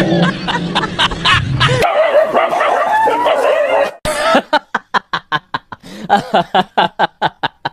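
A dog yelping and barking, with quick sliding cries, then a wavering drawn-out whine. In the last few seconds comes a fast rhythmic run of short sharp calls, about four a second.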